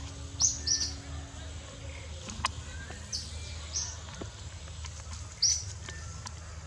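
Short, high-pitched bird chirps: two close together about half a second in and another about five and a half seconds in. They sit over a steady low rumble, with a single sharp click about two and a half seconds in.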